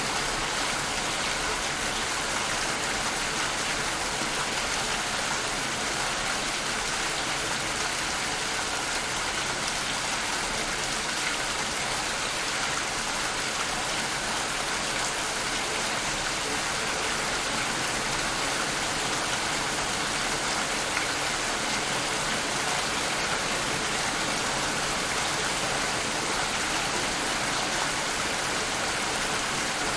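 Steady rainfall, a dense, even hiss of rain falling on surfaces.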